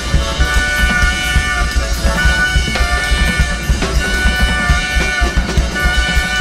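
Live experimental band music: a drum kit played busily over a steady held chord of high tones and a pulsing low bass.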